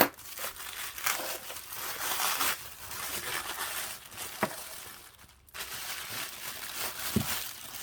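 Packaging crinkling and rustling in irregular bursts as it is handled and worked open, with a few small clicks.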